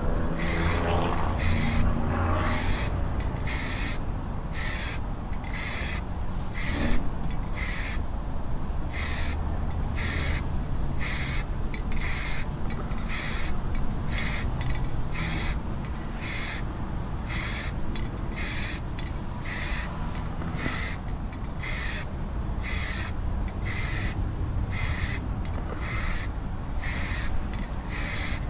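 Paint being sprayed in short hissing bursts, a little more than one a second with brief gaps between them, over a steady low rumble, as a coat of black paint goes onto a boat hull.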